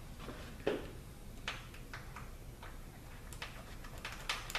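A handful of light, irregular clicks and taps of small metal parts on a ZF 5HP24 transmission valve body, as the alignment pins are worked out of it. The sharpest click comes about a second in.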